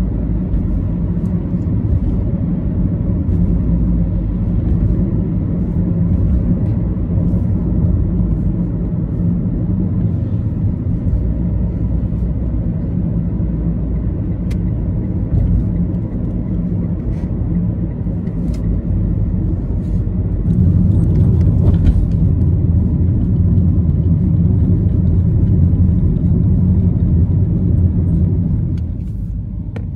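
Low, steady road and engine rumble of a moving car heard from inside the cabin. It grows louder for several seconds past the middle and eases off just before the end.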